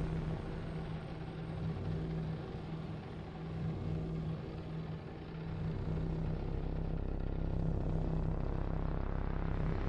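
Live electronic drone music played on synthesizer and laptop: a steady low hum under a dense wash of noise. The upper noise thins out through the middle and fills back in near the end.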